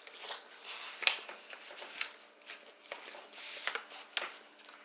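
Handling noise as spare plastic dog poop bags are pushed into a small nylon belt bag: irregular rustling and crinkling with scattered sharp clicks, and a longer rustle a little past the middle.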